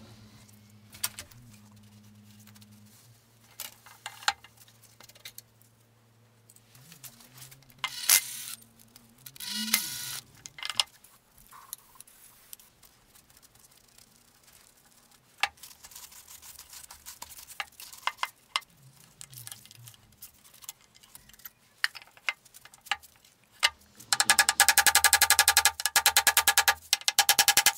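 Scattered metal clicks and clinks as a cast-iron drill press is taken apart with hand tools, then near the end a loud, fast run of hammer blows on the quill feed handle hub.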